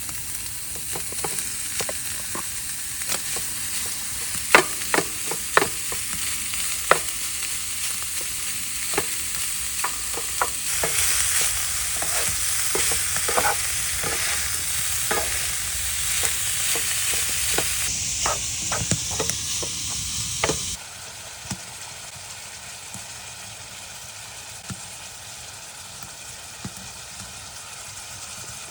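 Food sizzling in a hot pan while being stirred, with sharp clicks and taps of a utensil against the pan. About two-thirds of the way through, the sizzle drops suddenly to a quieter hiss.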